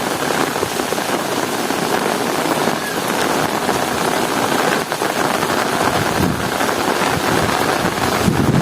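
Heavy rain falling steadily: a dense, even hiss of many drops.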